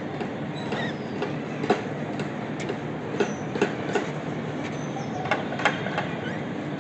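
Budgies giving short, faint chirps, with sharp irregular clicks over a steady low background hum.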